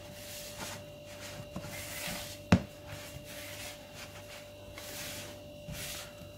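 Hands kneading and mixing soft, floury dough in a wooden bowl: repeated soft rubbing and squishing, with one sharp knock against the bowl about two and a half seconds in. A faint steady electrical hum runs underneath.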